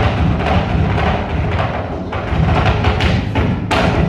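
Flamenco zapateado: a dancer's heeled shoes drumming rapid footwork on the stage floor, a dense run of strikes with a heavy stamp near the end.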